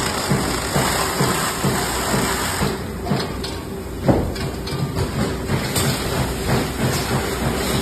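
Carton tape sealing machine running: a steady motor and roller noise with a light hiss and a quick, uneven low clatter, and one sharp knock about four seconds in.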